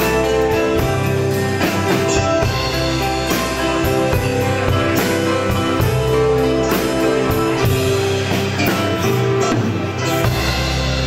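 A live band playing: electronic keyboard chords over a drum kit keeping a steady beat, with bass and guitar.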